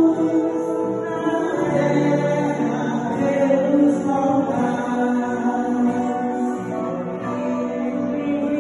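Women singing a hymn, the lead voice sung into a microphone, with other voices joining in.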